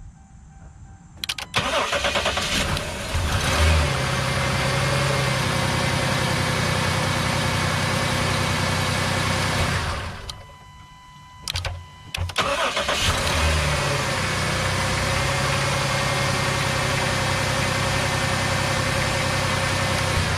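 2011 Dodge Ram pickup's engine cranking and catching, running steadily for several seconds, then stopping; after a couple of short clicks it is cranked, starts again and runs on. It starts readily with a TIPM bypass cable powering the fuel pump, which the owner takes as a sign that the truck's totally integrated power module has failed.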